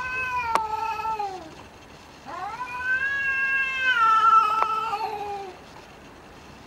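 Domestic cat yowling in a fight standoff: two long, drawn-out threatening yowls, the second one longer, each sliding down in pitch as it ends.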